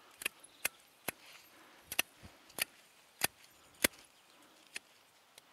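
Hand pruning shears snipping western thuja twigs: a series of sharp, irregular clicks, about ten cuts, some in quick pairs.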